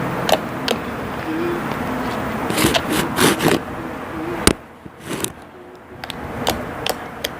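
Homemade glue slime being stretched and squished by hand, giving scattered sticky clicks and pops, with a cluster of them near the middle. A steady background hiss drops away about halfway through.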